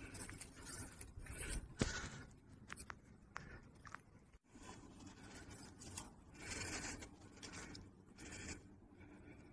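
Faint, scattered scuffs and crunches of footsteps on dry grass and rock during a climb, with a few sharp clicks, the loudest about two seconds in.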